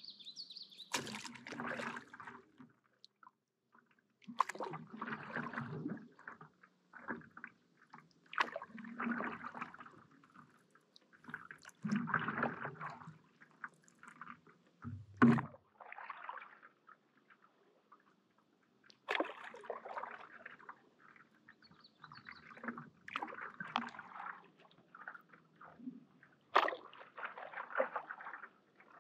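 Stand-up paddle strokes in calm lake water: the blade goes in with a splash and slosh, about once every four seconds, with a sharper thump about halfway through.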